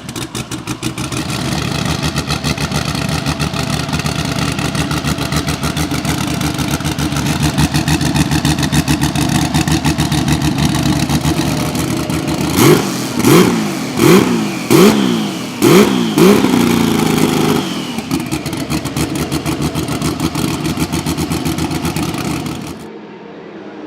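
Porsche 935 K3's twin-turbo 3.2-litre flat-six running roughly at low revs, then blipped about five times in quick succession, each rev rising and falling with sharp exhaust cracks, before settling back to a steady run.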